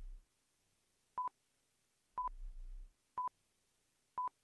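Quiz countdown timer beeping: four short electronic beeps, all at one pitch, one each second.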